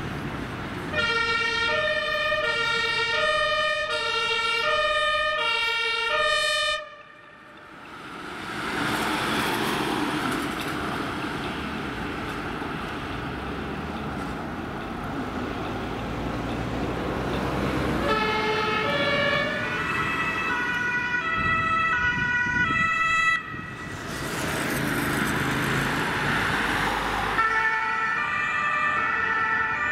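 German two-tone emergency siren (Martinshorn) on ambulance and emergency-doctor vehicles, switching back and forth between a high and a low note. It is heard in three stretches that stop suddenly near 7 s and 23 s. In between, traffic and passing-vehicle noise runs with no siren tones.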